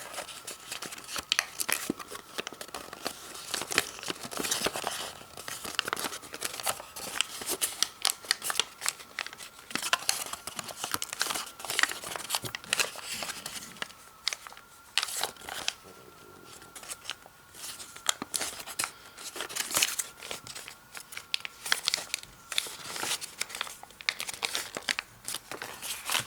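Sheet of origami paper being folded and creased by hand: irregular crinkling and rustling with sharp little crackles as the creases are pressed and the paper is worked into a cube.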